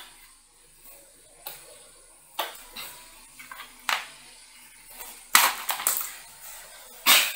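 Handling noise from cables and PC parts being moved: a series of irregular clicks, knocks and rustles, loudest in a cluster about five and a half seconds in and again near the end.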